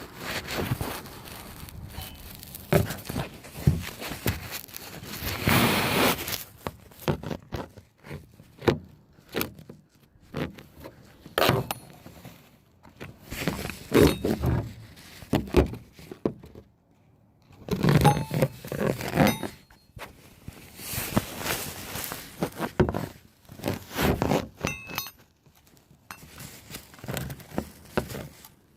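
Irregular thunks, scrapes and clinks of objects being handled and set down, with some rustling handling noise in between.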